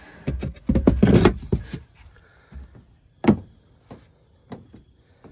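Wooden panels of a prefab cat house knocking and scraping as a removable floor panel is handled: a quick cluster of knocks and wood rubbing on wood in the first two seconds, then one sharp knock a little past the middle and a few light taps.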